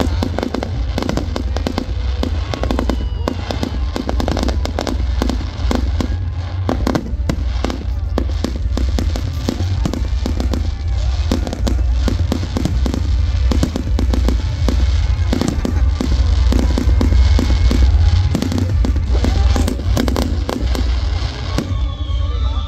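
Aerial fireworks going off in a rapid, continuous barrage of bangs and crackling, over a steady deep rumble.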